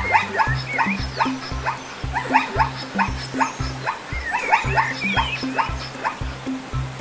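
A zebra's barking call: a long run of short, rising yelping barks, about three a second. It plays over background music with a steady bass beat.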